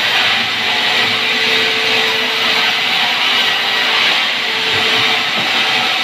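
Vertical band sawmill running steadily, its blade cutting lengthwise through a timber slab as it is pushed through: a loud, even hiss with a faint hum under it.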